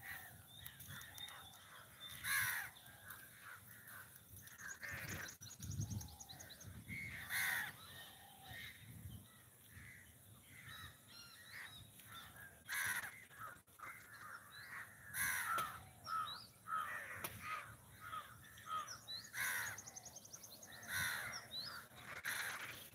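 Crows cawing: several loud caws a few seconds apart, over softer chirping bird calls.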